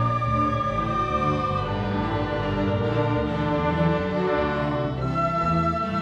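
Orchestra of woodwinds and strings playing held chords as a film accompaniment, moving to a new chord about five seconds in.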